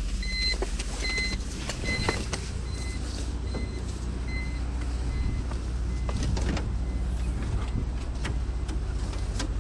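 Turbocharged BMW E46 engine running at a steady idle, with a warning chime beeping about once every three-quarters of a second that fades out after about four seconds, and a few scattered knocks. This follows what the driver takes for a failed turbo that has just poured out smoke and oil.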